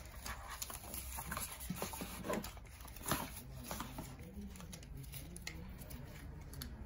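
Faint rustling and light scattered taps of hands handling an opened cardboard watch box and its packaging.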